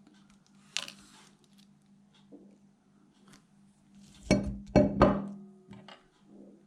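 Metal watch wristband and case clinking and knocking as the band is pushed back onto the watch: a sharp click about a second in, then three loud knocks in quick succession between about four and five seconds in.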